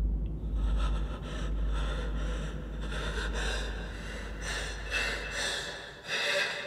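Fast, heavy frightened breathing and gasps over a low rumbling drone; the drone fades out about five and a half seconds in.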